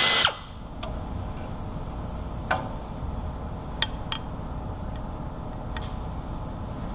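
A power tool's whine cuts off a moment in. After it come a few light, separate metal clinks and taps of tools and bolts being handled, over a steady low background noise.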